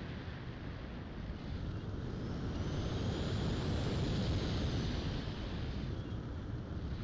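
Wind rushing over the onboard camera of a Multiplex Opterra electric flying wing in flight. The thin whine of its electric motor rises in pitch about two seconds in and falls away again about five seconds in.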